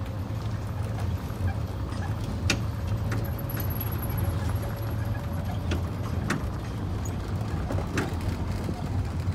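Open-sided passenger cart driving along with a steady low hum, with a few sharp clicks and rattles during the ride.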